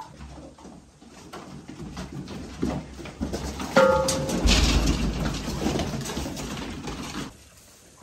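Sheep and lambs stirring in a stone shed: a short bleat about four seconds in, then a few seconds of loud rustling and shuffling that cuts off abruptly.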